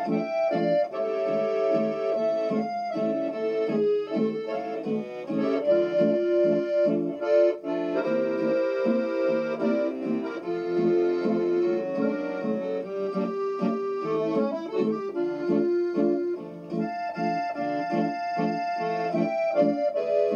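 Accordion playing a melody over held chords, with a steady rhythmic chord-and-bass accompaniment underneath.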